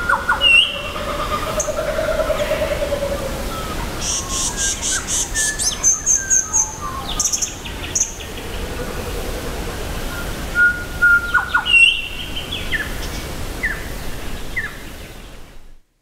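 Field recording of several birds calling: short whistled notes and chirps, with a fast rattling trill in the middle, over a steady low background. The recording cuts off abruptly near the end.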